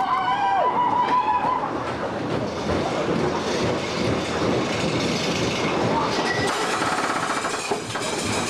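Wooden roller coaster train, the Giant Dipper, rattling and clacking along its wooden track. A long, steady high-pitched tone carries over from before and ends about a second and a half in.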